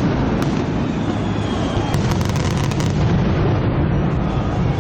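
Fireworks going off in quick succession: a continuous low rumble of booms with many sharp pops and crackles through it.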